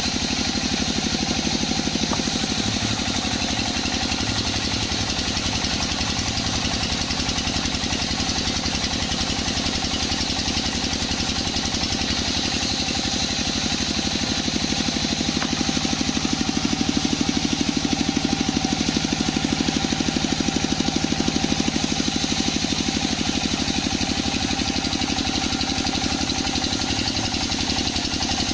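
Sawmill band saw machinery running steadily, with a constant hum and whine. It grows a little louder for several seconds past the middle.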